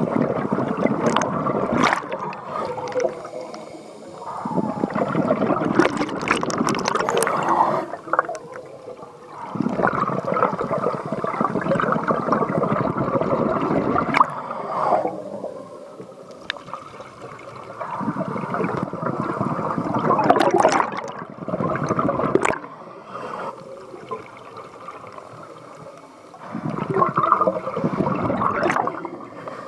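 Scuba diver's exhaled bubbles gurgling out of the regulator, heard underwater: about six bursts of bubbling, each a few seconds long, one for every breath out, with quieter gaps between them.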